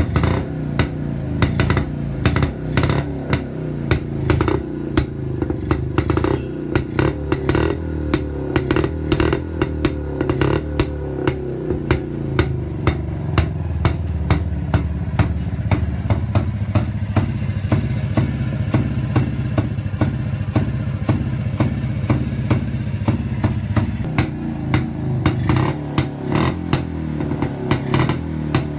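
Ideal Jawa 250 two-stroke single-cylinder motorcycle engine running and revving, with many sharp pops and clicks over its beat.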